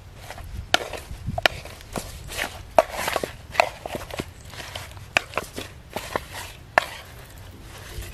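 Irregular sharp clicks and knocks with a few brief rustling swishes: kitchen handling while the milk-marinated chicken drumsticks are set aside to soak.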